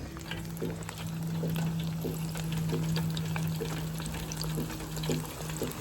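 Battered chicken pieces frying in hot oil: a steady crackle of many small pops. A steady low hum runs underneath.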